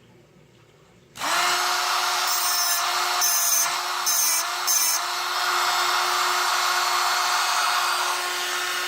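Handheld tungsten grinder (TechSouth Power Point) switched on about a second in, its motor running with a steady whine as a tungsten electrode's tip is ground square on the diamond wheel. There are a few short, harsher bursts of grinding early on.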